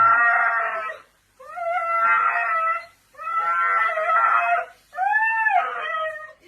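A dog howling: four drawn-out, high cries of about a second each with short breaks between them, the last one rising and then falling in pitch.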